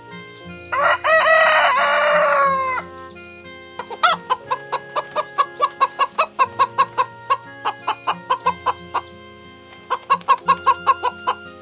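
A rooster crows once, one long call of about two seconds. Then a chicken clucks in a rapid run of short calls, about three or four a second, breaks off, and starts again near the end. Soft background music with held notes plays underneath.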